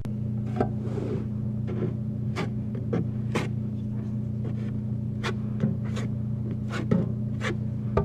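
Drywall knife working joint compound: short, irregular scrapes and clicks, about one every half second to a second, over a steady low electrical hum.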